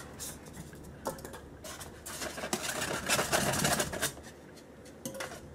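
Styrofoam packing pieces being pulled out of a foam tray, rubbing and scraping against the polystyrene with irregular squeaks and clicks, busiest around the middle.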